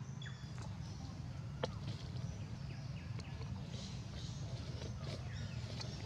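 Outdoor forest ambience: a steady low rumble with a few scattered sharp clicks and faint high bird chirps.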